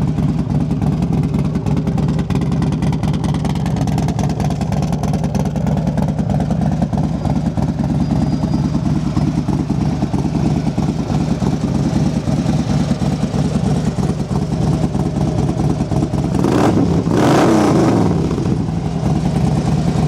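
Harley-Davidson Street Glide's fuel-injected 103-cubic-inch V-twin idling steadily through a Vance & Hines 2-into-1 exhaust, just after a start-up. Near the end it is blipped once, the pitch rising and falling back to idle.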